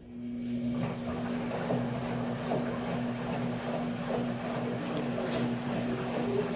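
KMC washing machine switching on: its motor starts a steady hum, with water churning and sloshing in the tub.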